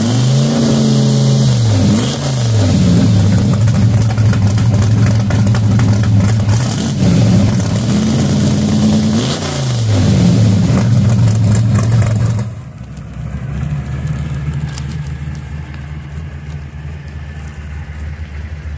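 Drag car's engine running loud at idle, revved in short blips near the start and again about nine seconds in. A little past twelve seconds it cuts to a quieter, steady engine idle.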